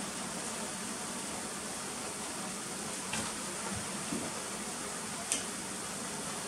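Sukiyaki simmering in a cast-iron pot, a steady bubbling hiss. A few light clicks of wooden chopsticks against the pot and ingredients, the sharpest about five seconds in.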